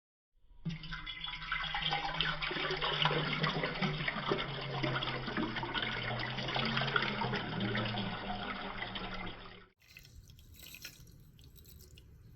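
Water running from a kitchen tap into a sink, steady for about nine seconds, then cut off suddenly; a much fainter sound follows.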